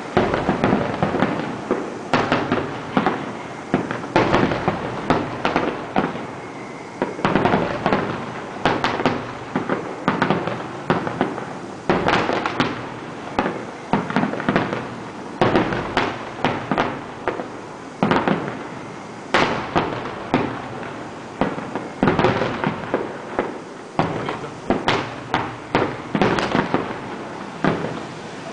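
Aerial firework shells bursting in quick succession: a near-continuous run of sharp bangs, several a second in clusters, each trailing off briefly.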